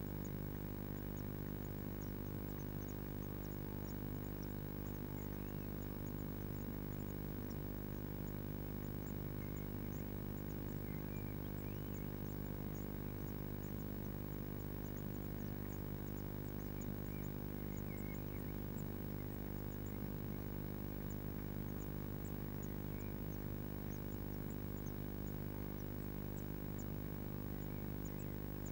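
Steady electrical mains hum from the nest-box camera's audio pickup, with faint, scattered high-pitched ticks.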